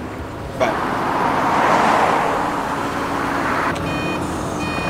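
Propane forklift engine running with a loud rushing hiss over it. A little under four seconds in, the forklift's reversing alarm starts beeping in short, evenly spaced pulses.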